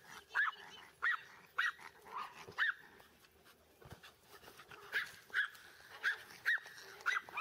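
A small dog barking repeatedly in short, high-pitched yaps, about ten in all, in two runs with a pause of a couple of seconds in the middle.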